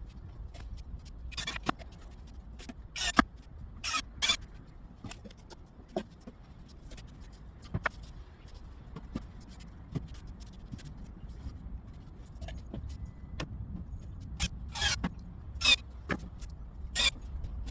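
Hand work on wooden planter boards: irregular short scraping squeaks and light knocks, a few every several seconds, over a steady low rumble.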